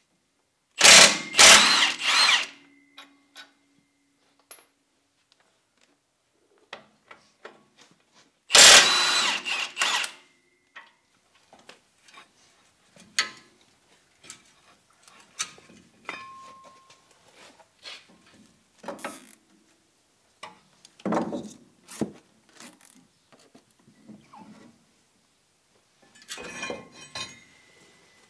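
An impact wrench breaking loose and running out the two 21 mm brake caliper bolts, in two loud runs of a second or two each, several seconds apart. These are followed by scattered metal clicks and knocks as the loosened brake parts are handled.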